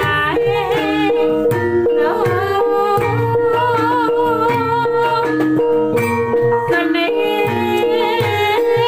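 Javanese gamelan ensemble playing a gending: bronze bonang pot gongs and other metallophones ringing steady tones over kendang drum strokes, with a voice singing a wavering melody over the ensemble.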